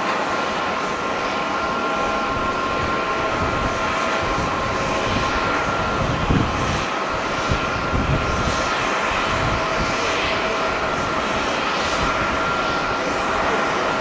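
British Airways Boeing 787's Rolls-Royce Trent 1000 jet engines running loud as the airliner rolls along the runway: a steady roar with a steady whine on top. Strong wind buffets the microphone in low gusts around the middle.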